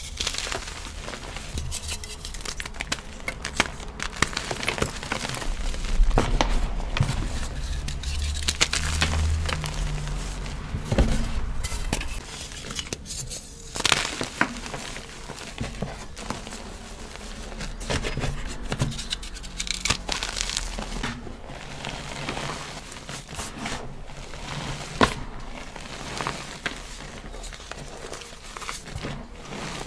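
Dyed cubes of gym chalk being crushed and crumbled, a dense run of crunching and crackling with a few louder snaps.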